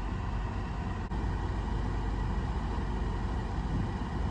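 Steady road and engine noise inside a moving car's cabin, a low even rumble.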